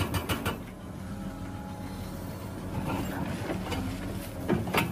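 Tracked excavator working a hydraulic breaker on rock: the machine runs steadily, with quick runs of sharp hammer blows at the start and again near the end.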